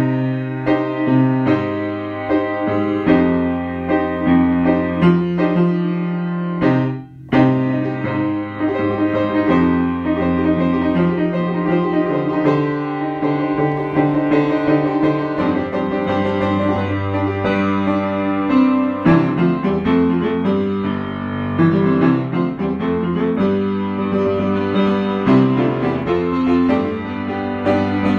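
Piano music playing chords and melody, with a brief break about seven seconds in.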